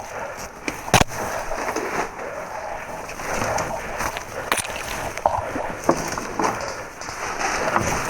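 Scattered sharp cracks over a rustling noise, the loudest crack about a second in.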